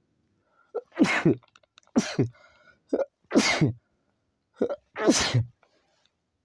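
A man sneezing four times in quick succession, about a second apart, each sneeze with a short catch of breath just before it.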